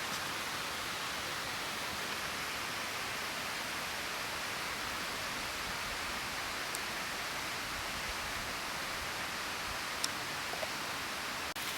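Steady, even hiss of outdoor ambient noise, with a few faint ticks near the end.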